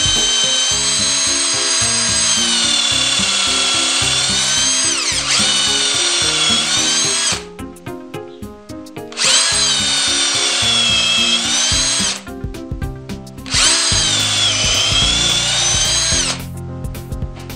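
Cordless drill whining as it bores into a wooden slab, in three runs: a long one, then two shorter ones after pauses about seven and twelve seconds in. In each run the pitch sags and then rises again. Background music plays underneath.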